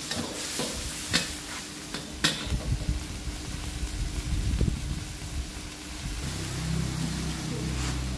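A metal spatula scraping and clicking against a wok over the steady sizzle of a shrimp-paste, chili and soy sauce mixture frying. The clicks come in the first couple of seconds; after that a low rumble rises and holds to the end.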